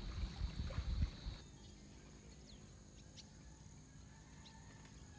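Quiet outdoor ambience: a steady high-pitched insect drone with a few faint bird chirps. It follows about a second and a half of low rumbling noise that stops abruptly.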